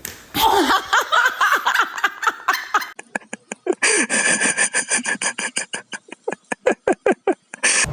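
A person laughing hard, breaking into rapid repeated bursts of about four or five a second that stop abruptly near the end.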